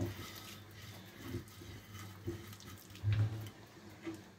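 Fingers mixing an oily herb-and-spice marinade on a ceramic plate: soft, irregular wet squishing and scraping, with a steady low hum underneath.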